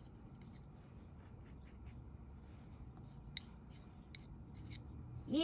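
Faint scraping of a plastic palette knife dragging oil paint across a canvas, with a few light clicks. Near the end a woman's voice breaks in with a loud exclamation.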